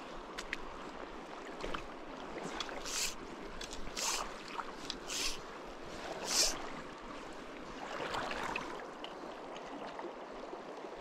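Steady rush of flowing river water over riffles, with four short hissing swishes about a second apart near the middle.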